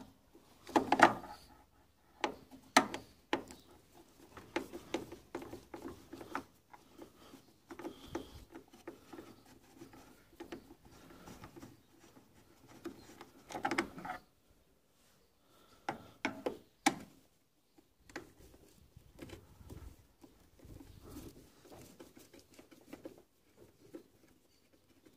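Screwdriver working screws out of a washing machine's plastic detergent-drawer housing: irregular small clicks, scrapes and taps of metal on plastic, with a few louder sharp knocks.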